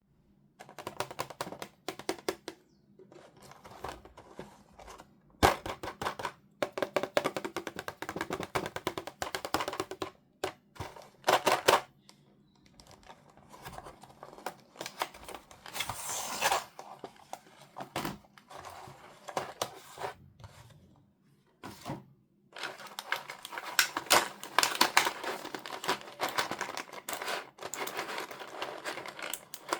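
Plastic toy pieces and packaging being handled and unboxed: quick clicks, taps and snaps with stretches of crinkly rustling, starting and stopping in short bouts with brief pauses.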